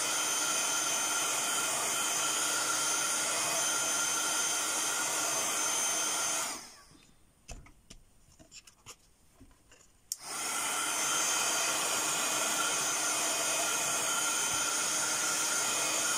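Handheld craft heat gun blowing steadily, a hiss with a whine of several fixed tones. It is switched off about six and a half seconds in, leaving a few faint clicks, and switched back on about three and a half seconds later.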